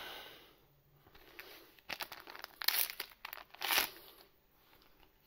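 Foil booster-pack wrappers of the Z/X trading card game crinkling as hands move through them, in a few short bursts about two to four seconds in, two of them sharper than the rest.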